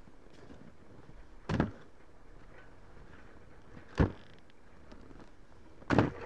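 Ski boot stepping into an alpine ski binding on the snow: three sharp clunks about two seconds apart, the last and longest as the heel is pressed down and the heel piece snaps shut.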